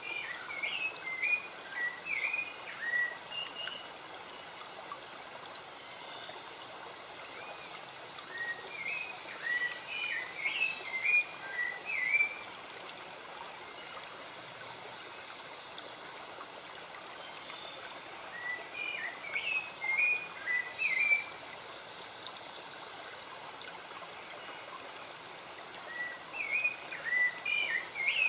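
A songbird singing phrases of quick, chirping notes, each phrase a few seconds long and repeated about every eight seconds, over the steady hiss of a flowing stream.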